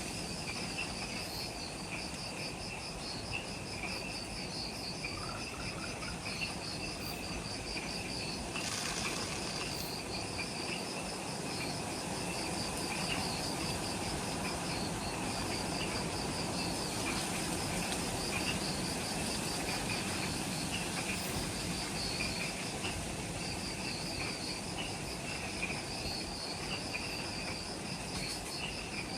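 Evening chorus of forest insects: a high, rapid pulsing trill that breaks off and starts again, with lower chirping beneath and a steady hiss of many more insects behind.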